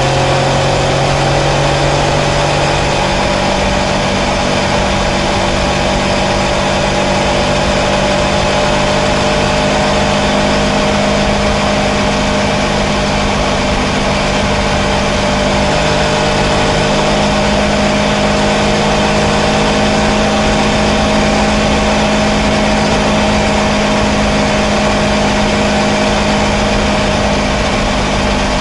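Kawasaki Versys 650's parallel-twin engine pulling steadily at cruising speed, its note rising slightly in the first few seconds and then holding level, over a constant rush of wind noise.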